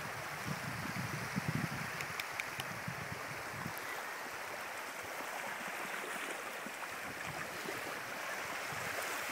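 Small shallow-water waves lapping and washing over a low-tide beach, a steady rush of water, with some low rumbling in the first three seconds.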